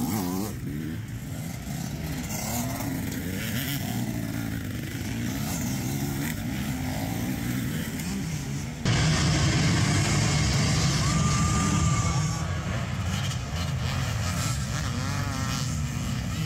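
Dirt bike engines revving and passing by, their pitch rising and falling as the riders work the throttle. About nine seconds in the sound jumps abruptly to a louder, denser sound of many dirt bikes running together in a pack.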